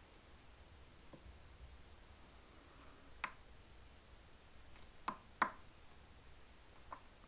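A few light clicks of a screwdriver tip against a Suzuki GS550's Mikuni BS32 carburetor while working at a stubborn pilot jet, two of them close together about five seconds in, over faint room tone.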